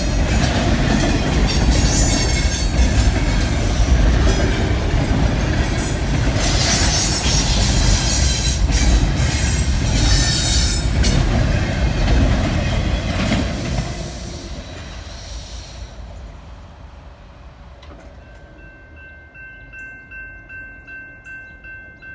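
Double-stack container train's well cars rolling past close by: a loud, continuous rumble of steel wheels on rail with high-pitched wheel noise over it. About fourteen seconds in it falls away to a much quieter hush, and near the end a faint steady high tone comes in.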